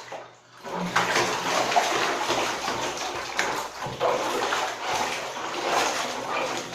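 Bath water sloshing and splashing continuously as a body churns around in the filled bathtub.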